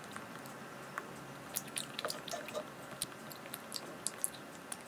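Close-miked eating sounds of someone chewing soft cake: irregular small wet clicks and squishes from the mouth.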